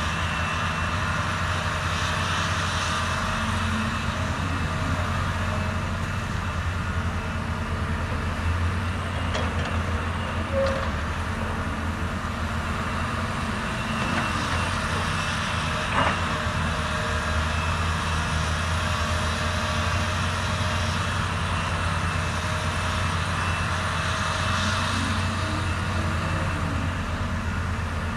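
Caterpillar 320D RR excavator working: a steady diesel engine drone with a higher hydraulic whine over it, and a couple of brief knocks about ten and sixteen seconds in.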